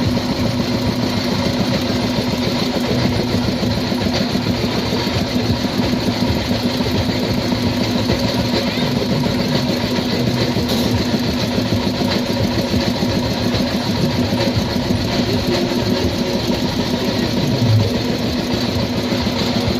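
An engine running steadily at a constant speed, a loud unbroken drone with a steady hum.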